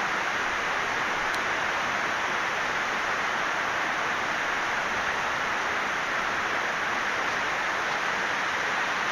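A steady rushing noise that holds the same level throughout, with no speech.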